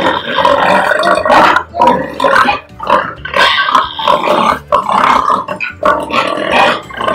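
Pigs grunting in a run of loud, uneven grunts as a boar mounts a sow for natural mating.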